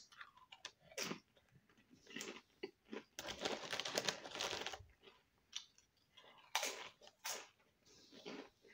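Flamin' Hot Doritos tortilla chips being bitten and chewed: a run of irregular crisp crunches with short quiet gaps between them.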